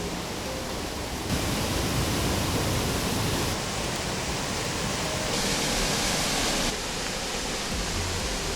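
Steady rushing of a waterfall, a dense hiss of falling water whose loudness shifts abruptly a few times.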